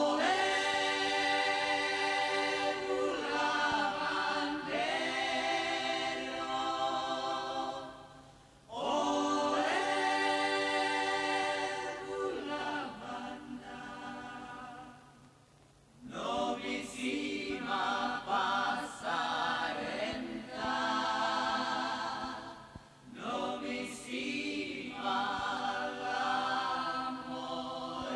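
Vocal trio of a man and two women singing an unaccompanied harmony introduction in long held phrases, with brief breaks about 8, 16 and 23 seconds in.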